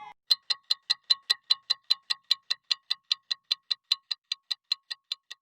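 A clock-like ticking sound effect: fast, even ticks, about five a second, each with a bright ringing click, with dead silence between them.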